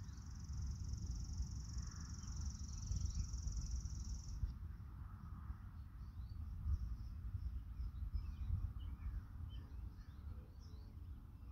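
Rural outdoor ambience: wind rumbling on the microphone, a steady high insect trill that stops about four seconds in, then scattered faint bird chirps.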